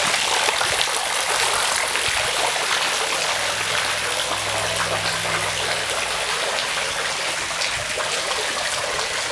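Water splashing steadily into a swimming pool from a spout at its edge, a continuous trickling rush.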